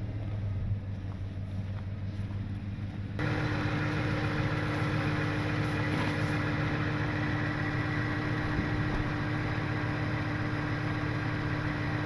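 Truck engines idling steadily in the snow. About three seconds in the sound jumps to a closer, louder idling drone with a steady held hum.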